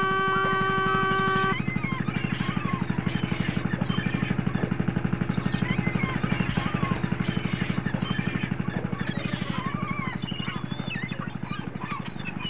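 A fishing trawler's diesel engine thumping in a fast, even beat. A horn blows a steady note for about the first second and a half, and birds call now and then over the engine.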